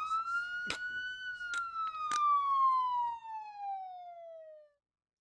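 Police siren wail slowly winding down in pitch, with several sharp cracks over it, then cutting off abruptly near the end.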